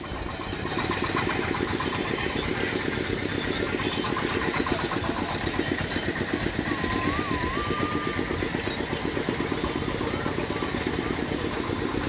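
A motorcycle engine running steadily at low speed, its rapid even firing pulses close by.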